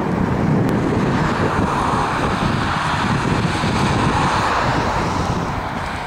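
Wind buffeting the microphone: a loud, steady rumbling rush that swells slightly twice.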